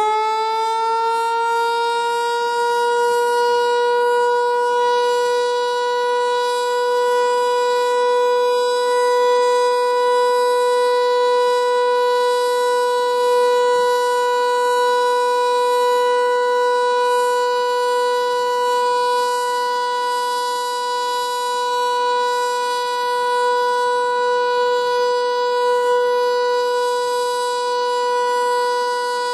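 American Signal T-121 rotating outdoor warning siren finishing its wind-up and then holding one steady tone: the Alert signal, sounded as a test.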